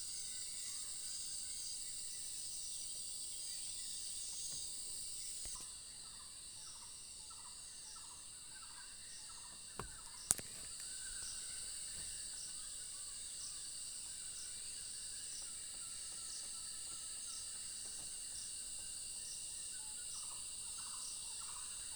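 Steady high-pitched insect drone, cricket- or cicada-like, with stretches of a short call repeated about twice a second. Two sharp clicks come just before the middle.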